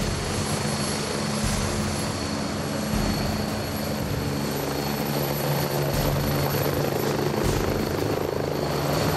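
Helicopter running on the pad with its rotor turning: a steady engine and rotor noise with a thin high turbine whine over it.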